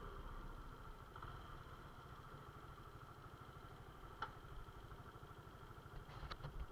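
Suzuki Intruder motorcycle engine idling steadily and faintly while the bike waits at a junction, with a couple of light clicks about four and six seconds in.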